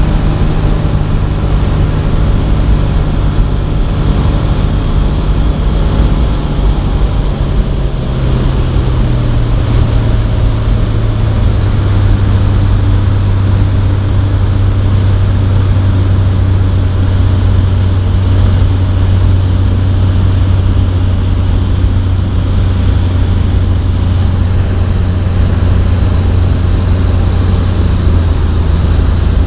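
Kitfox light aircraft's engine and propeller droning steadily, heard from inside the cabin with wind noise. The engine tone drops a little in pitch between about seven and twelve seconds in, then holds steady.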